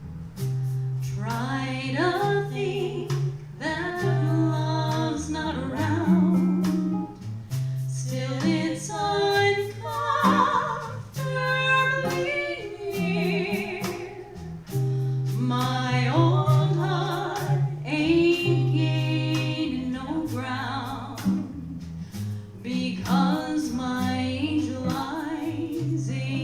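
Small live jazz combo playing a slow ballad: a singer's wavering melody over guitar with a stepping bass line and light percussion ticks.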